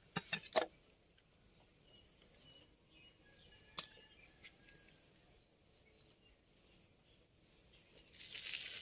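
Quiet wet handling of a large fish on a wooden cutting board: a few sharp clicks and taps in the first second, then one sharp knock near four seconds as the knife is set down on the board. Faint bird chirps in the background, and a hissing noise starts near the end.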